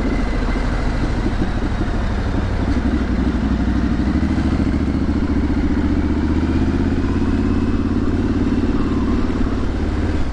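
Triumph Street Scrambler's 900 cc parallel-twin engine and exhaust running steadily at low road speed, a loud, even rumble with slight rises and falls in pitch.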